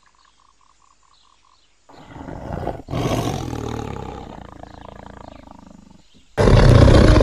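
Dinosaur roar voicing a Neovenator puppet: a growl builds about two seconds in, then one long roar that slowly fades. Loud music cuts in near the end.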